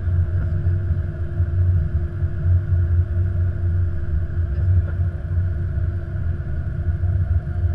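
Steady low rumble and hum on the flight deck of an Airbus A330-200 as the airliner taxis and turns on the runway.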